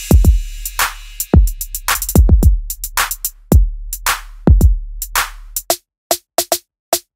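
Electronic music: a drum-machine beat of sharp hits over a steady deep bass. The bass drops out near the end, leaving a few sparse hits.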